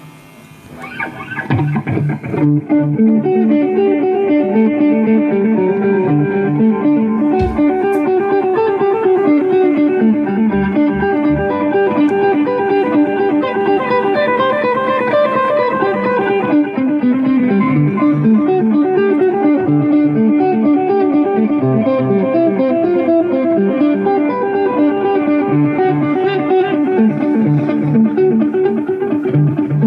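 Guitar music, most likely electric guitar: a steady stream of quick plucked notes that comes in about a second in and carries on without a break.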